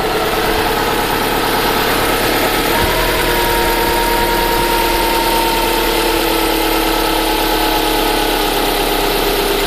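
Subaru Forester's flat-four boxer engine idling steadily while not yet fully warm, a faint steady whine coming in about three seconds in. The owner is hunting a knock and whistle from the timing-belt area that appeared on a cold engine after the belt and rollers were replaced.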